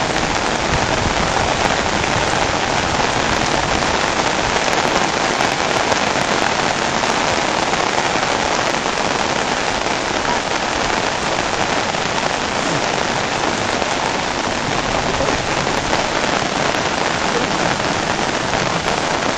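Heavy rain falling, a steady, even hiss that never lets up.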